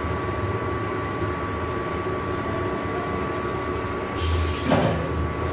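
Induction cooktop running under a pan of heating oil: its cooling fan whirs steadily with a thin, steady electrical whine on top. A brief, louder noise comes a little over four seconds in.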